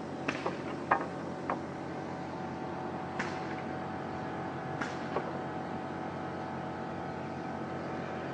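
Sharp, irregular knocks and taps, about seven in the first five seconds and the loudest about a second in, over a steady mechanical hum.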